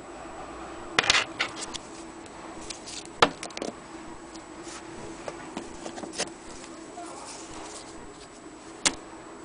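Scattered sharp clicks and taps from objects being handled, a few close together about a second in and single ones around three, six and nine seconds in, over a faint steady hum.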